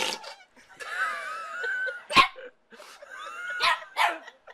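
A dog whining in a wavering pitch, then giving a few short, sharp barks.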